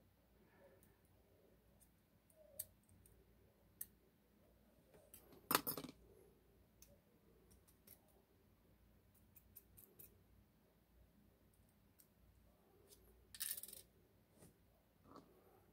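Scattered small metallic clicks and scrapes as an Abloy Exec disc-detainer lock cylinder is worked apart by hand and its parts come loose. A louder short rattle comes about five and a half seconds in and another about thirteen seconds in, with near silence between.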